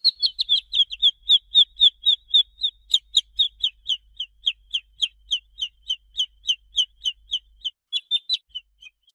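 Baby chicken (chick) peeping in a rapid run of short, high peeps, about four to five a second, each one dropping slightly in pitch. The peeping stops near the end.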